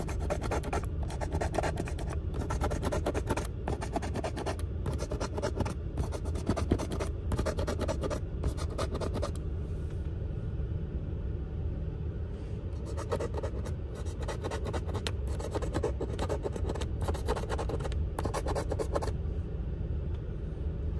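A coin scratching the coating off a lottery scratch-off ticket in quick repeated strokes, stopping for a couple of seconds about halfway through and then starting again, over a steady low hum.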